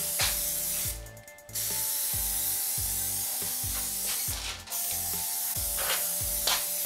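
Aerosol can of Plasti Dip spraying in long hissing strokes, breaking off briefly about a second in and again around four and a half seconds.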